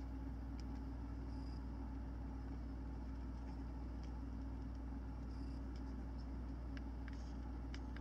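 Steady low hum of room tone, with a few faint small clicks near the end as a plastic handheld GPS unit is handled.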